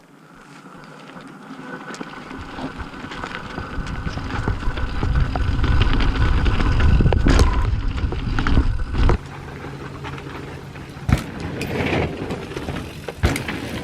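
Mountain bike riding down a dirt trail at speed: wind buffeting the camera microphone and tyres rolling over dirt and rock. It builds to a heavy rumble, cuts back suddenly about nine seconds in, and has a few sharp knocks from the bike hitting bumps.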